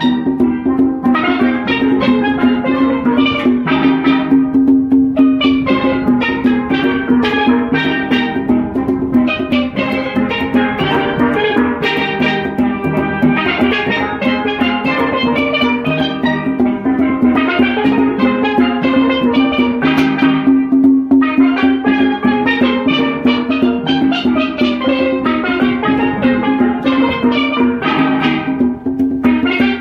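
Children's steel pan band playing a tune: several steel pans struck with sticks in a continuous stream of ringing pitched notes.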